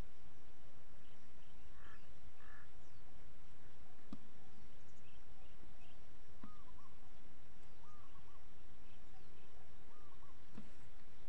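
Birds calling in short chirps at irregular intervals over steady outdoor background noise, with a few faint knocks.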